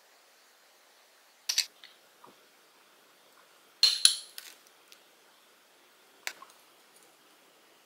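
A few sharp clicks and knocks of wooden chopsticks, a small ceramic dish and a plastic food container handled on a countertop. The loudest is a quick double knock about four seconds in.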